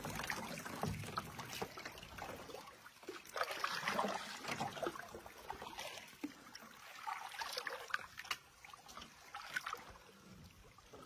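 Kayak paddle strokes: the blades dipping into river water with irregular splashes and water trickling off them.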